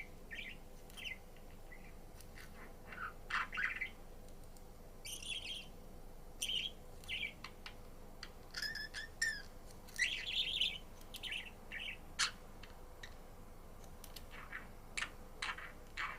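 Budgerigar chirping and warbling in short, irregular bursts, with the odd harsher squawk.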